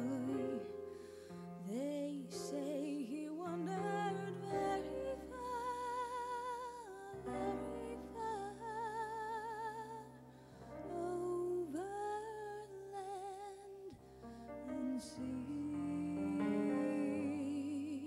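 A woman singing a slow ballad live, holding long notes with a wide vibrato, over sustained chords on a stage keyboard.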